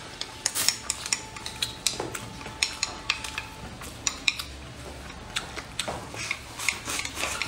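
Wooden chopsticks clicking and scraping against a ceramic rice bowl as rice is shovelled from the bowl into the mouth, in many quick, irregular taps.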